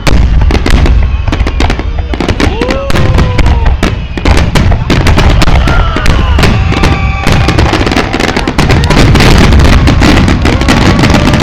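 Fireworks display in a dense barrage: many sharp bursts and crackles in quick succession over a deep rumble, with a few pitched tones sliding up and down among them.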